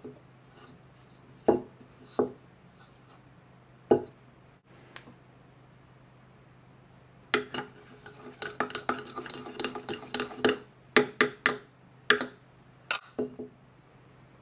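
Small plastic toy bowl knocked against the table a few times, then a plastic toy spoon stirring and clattering quickly inside it for several seconds, the hollow plastic ringing with each knock.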